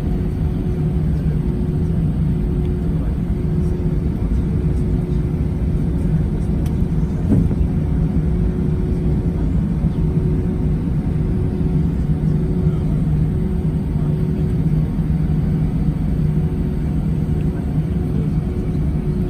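Steady cabin noise inside an Airbus A319 airliner: an even rumble with a low engine hum and a higher steady tone over it.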